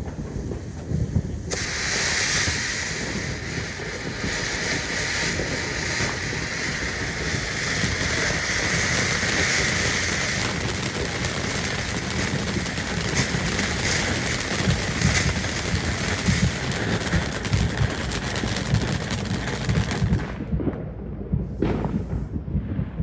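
A consumer firework going off with a long, dense hiss full of crackling pops. It stops abruptly about 20 seconds in, and a few separate bangs follow near the end.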